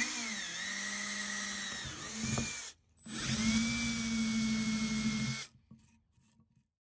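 Milwaukee cordless drill running in two spells, drilling screw holes through the clear plastic base plates of shower-rod mounting flanges. The motor's whine dips in pitch as the bit bites. It stops briefly before the second hole and cuts off about five and a half seconds in.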